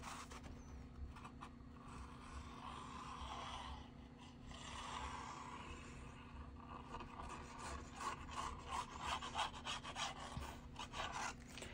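Faint rubbing and handling of a kraft-paper flap and a plastic squeeze bottle of liquid glue as glue is run along the paper edge, with a few light ticks near the end. A low steady hum sits underneath.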